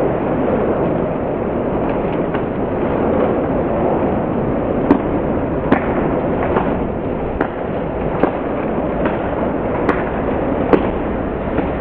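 Bunch of road-racing bicycles passing close by, a steady rushing noise of wheels and passing traffic. From about halfway through, sharp cracks repeat about once every 0.8 seconds, in the manner of a spectator clapping the riders.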